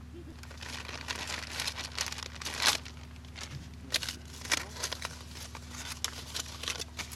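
Aluminium foil crinkling and rustling in irregular crackly bursts as a crumpled foil packet is unwrapped by hand, loudest a little under three seconds in.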